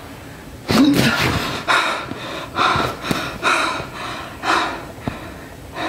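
A woman gasps sharply about a second in, then breathes hard in heavy breaths about one a second, the panicked breathing of someone startled awake.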